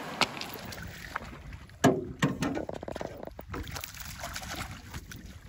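A river rushing over stones at first, then water splashing beside a small boat, with several sharp knocks and clicks, as a fish is landed in a net.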